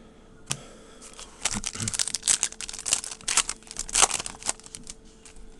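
Trading cards and their plastic packaging being handled close to the microphone: a single click about half a second in, then about three seconds of crinkling and crackling.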